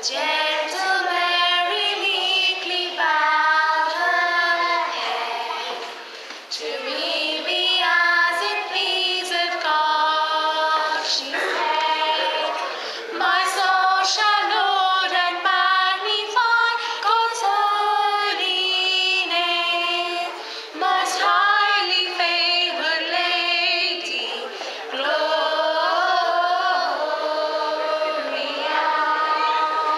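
A group of young girls singing a song together, in sung phrases with short pauses between them.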